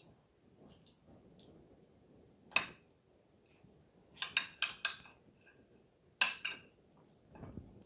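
Cutlery clinking and tapping on a ceramic dinner plate. One sharp clink comes about a third of the way in, a quick run of four follows about halfway, and two more come near the end.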